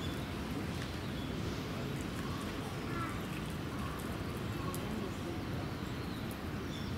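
Steady outdoor background hum with faint, indistinct distant voices and a few faint high chirps.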